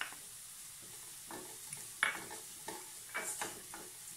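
Wooden spatula stirring and scraping chopped onions, green chillies and ginger-garlic around a kadai, over a faint steady sizzle of the mixture frying in coconut oil. A run of scraping strokes begins about a second in, the loudest about two seconds in.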